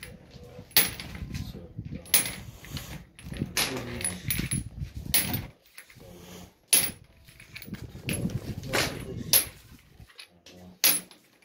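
Galvanised iron pipe fittings clinking against each other as they are handled and counted out, with a sharp metal clink every second or two and rustling between them.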